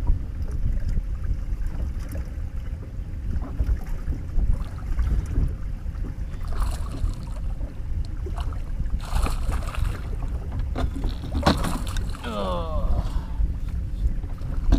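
Wind rumbling on the microphone aboard a boat, with a few short louder bursts of noise in the second half.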